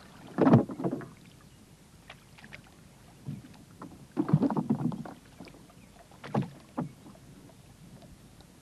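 Water splashing and knocks against a rowboat as a gill net is hauled in by hand over the side. The sound comes in short bursts: a loud one about half a second in, a cluster around four seconds, and two brief sharp ones near six and a half seconds.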